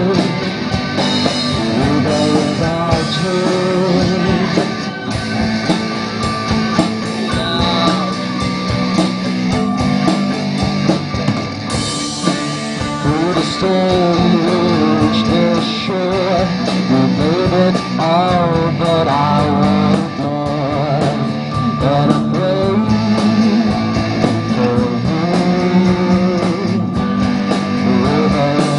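Live rock band playing electric guitars over a bass guitar, with bending guitar lines and a steady beat.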